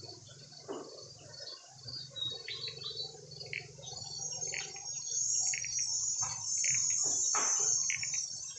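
Insects trilling in a high, steady hiss that swells louder in the second half, with short bird chirps repeating throughout and a low steady hum underneath.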